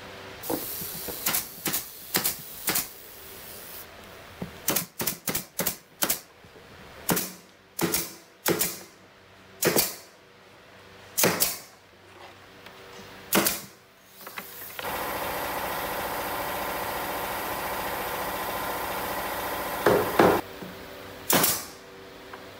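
Pneumatic nail gun firing into plywood: about twenty sharp shots in irregular clusters. About two-thirds of the way in, a steady machine noise runs for about five seconds, broken by two more shots near its end.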